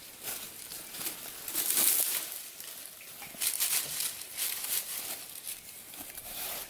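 Bursts of rustling and scraping as the rope of a snagged fishing magnet is tugged hard, several times over the few seconds.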